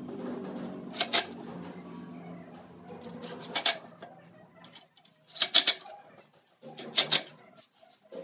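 Short, sharp metallic clicks and clatters in brief clusters about every two seconds, four in all: tools and metal parts being handled against a steel-tube frame. Under the first half a low steady hum runs, then stops about halfway.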